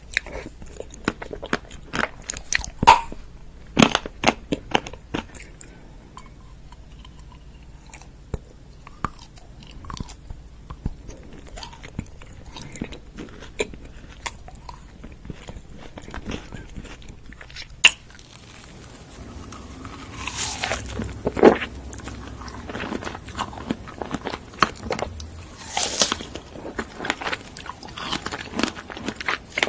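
Close-miked eating sounds: crunchy bites and chewing, in irregular sharp crunches and mouth clicks. About eighteen seconds in the sound changes character as another eating clip begins.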